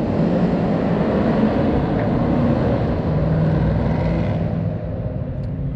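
Pickup truck's engine running loud and steady, easing off about four and a half seconds in.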